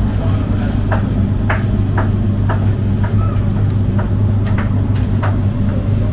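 Metal kebab skewers clicking against the steel rim of a charcoal grill as they are turned, about twice a second, over a steady low machine hum from the grill's fan.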